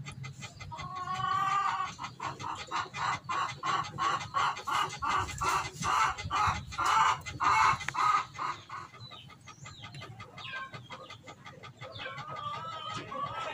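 Chickens clucking: a drawn-out call about a second in, then a long run of short clucks repeated about two or three times a second, and another wavering call near the end.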